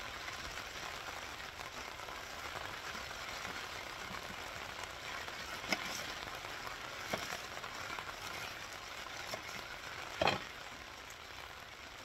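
Rain falling steadily, an even hiss, with a few scattered knocks, the loudest about ten seconds in.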